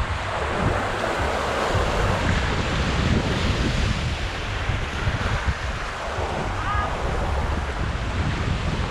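Small waves washing onto a sandy beach, the wash swelling and easing, with wind buffeting the microphone.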